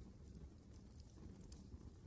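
Wood fire in a fireplace crackling faintly: scattered sharp pops and snaps over a soft low rumble of the flames.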